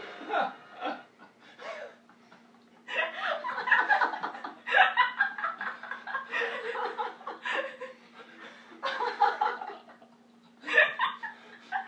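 A man and two women laughing together in several bouts with short pauses between, over a faint steady hum.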